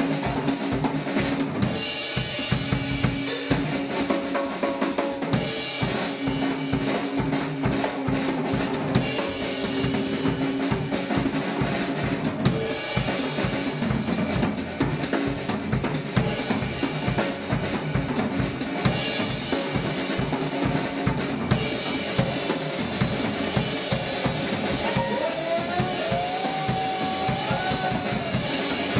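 Live band music led by a drum kit played hard: a fast, dense beat on bass drum, snare and cymbals over held amplified notes, with a bending high note near the end.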